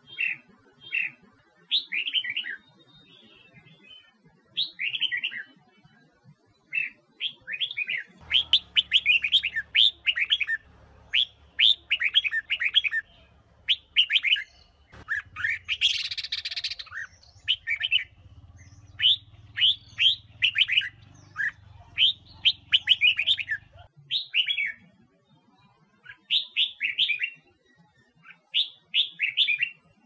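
Red-whiskered bulbul singing: quick runs of short, bright whistled notes grouped into repeated phrases, with short pauses between phrases.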